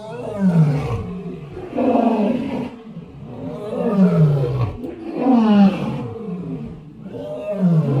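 Lion roaring: a run of about five roars, each falling in pitch, roughly one every second and a half.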